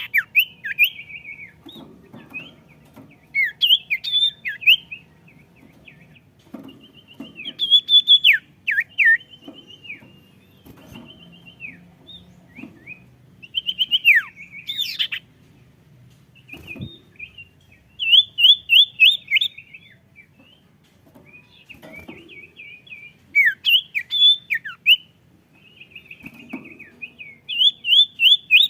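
A sirtu songbird singing energetically, in repeated bursts of quick, high chirping and sweeping notes, each phrase a second or two long with short pauses between. Faint low knocks come in between the phrases.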